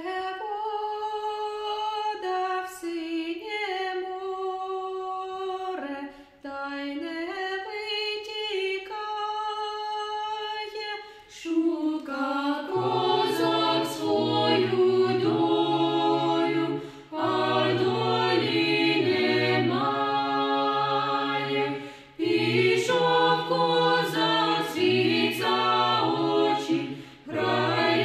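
Small mixed a cappella choir singing a Ukrainian folk-choir piece in Ukrainian. Upper voices sing alone at first, lower voices join about twelve seconds in and the sound grows fuller, in phrases separated by short breaks.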